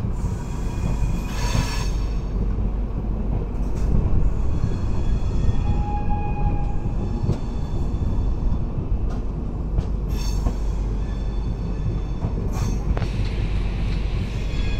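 Moving train heard from on board: a steady low rumble of wheels on the track, with brief high metallic wheel squeals about a second and a half in, around ten seconds, and once more shortly after.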